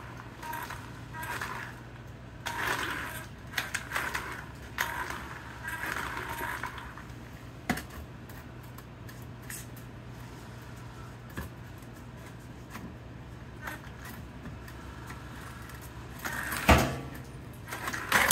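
Handling noise from an electric RC buggy and its pistol-grip radio transmitter: scrapes and rustles in the first half, scattered small clicks, and a sharp knock near the end that is the loudest sound, over a steady low hum.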